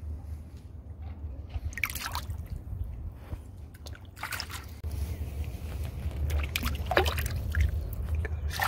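Water splashing and dripping in short, irregular bursts over a steady low rumble.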